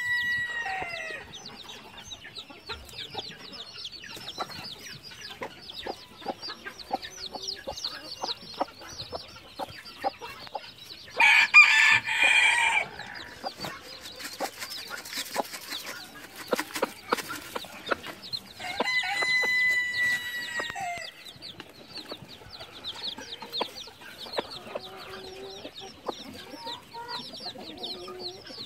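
A brood of newly hatched chicks peeping constantly in high, quick chirps. Adult chickens break in twice with louder calls, one about eleven seconds in and a longer, held one about nineteen seconds in.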